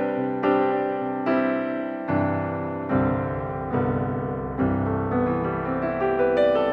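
Background piano music: slow, gentle chords struck about every 0.8 seconds, each left to ring and fade.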